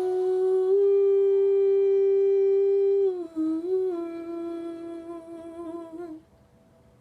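A singer humming a long closing note. It is held steady for about three seconds, then drops a little lower and wavers before stopping about six seconds in.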